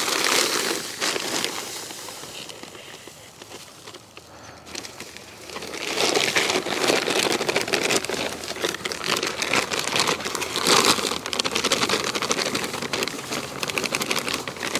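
Play sand poured from a plastic bag into a plastic five-gallon bucket: a gritty hiss of falling sand with the plastic bag crinkling. It dies down for a few seconds after the start, then picks up again, louder, about six seconds in.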